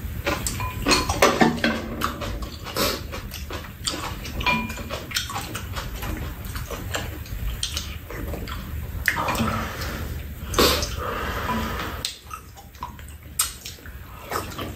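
Two people eating spicy stir-fried fish cake from a shared pan: chewing and slurping, with chopsticks and spoons clicking against the bowls and the metal tray many times.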